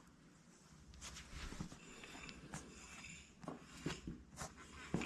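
Faint, scattered clicks and light knocks of parts being handled during hands-on work on a four-wheeler's front wheel.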